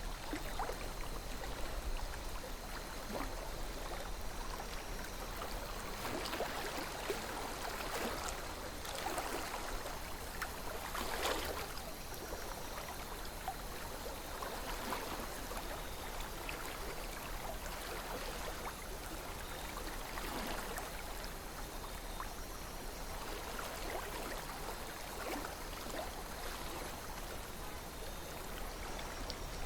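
A small river flowing over stones: steady water rushing with frequent small splashes and gurgles, one fuller splash about eleven seconds in.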